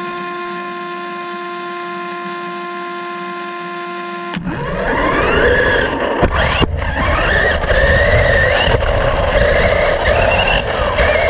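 A steady electronic tone, typical of a race-start tone, holds for about four seconds and cuts off. Then an RC buggy launches: its motor whine slides up and down with the throttle over the sound of the tyres on dirt, with sharp knocks as it hits bumps and jumps.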